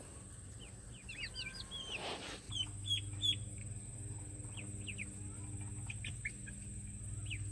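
Young poultry chicks peeping: many short, high, falling peeps in quick succession, over a steady low hum. A brief rush of noise comes about two seconds in.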